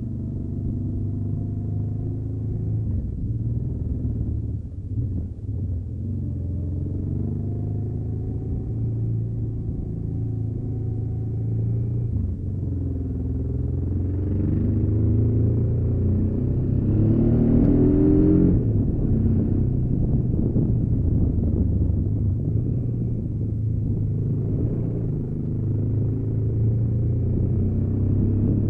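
Honda Africa Twin XRV750's V-twin engine running at road speed, its pitch rising and falling with the throttle. About two-thirds of the way through it grows louder with a rising pitch under acceleration.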